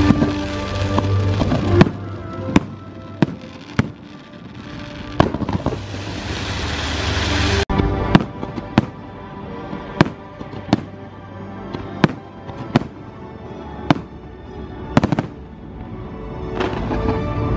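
Aerial fireworks bursting: a string of sharp bangs, about one a second, over show music that fades down after the start and swells again near the end. A rising hiss builds before the bangs resume about halfway through.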